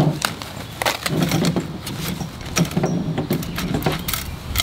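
Folded aluminum table frame clinking and rattling as it is pulled out of its canvas carry bag: many short metallic clicks and knocks over a low steady hum.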